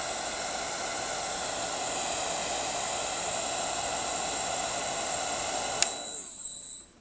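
Hand-held hair dryer blowing steadily, a loud even rushing hiss with a faint hum under it. A sharp click comes shortly before it cuts off near the end.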